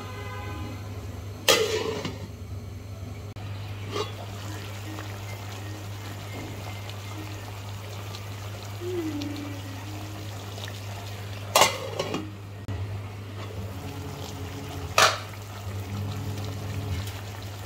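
Beef and onion curry cooking in an aluminium pot, over a steady low hum, with four sharp metal clanks against the pot. The first comes about a second and a half in, a weaker one near four seconds, and two louder ones after about eleven and fifteen seconds.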